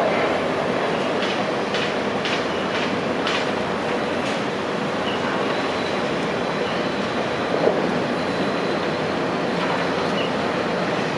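Heavy construction machinery running steadily, with a few sharp metallic clanks in the first few seconds and a brief squeal near the end.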